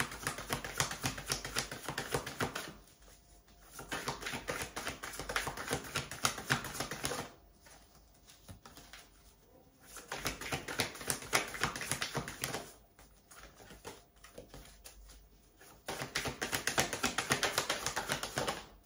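A tarot deck being shuffled by hand: rapid clicking of cards slapping against each other, in four bursts of a few seconds with short pauses between.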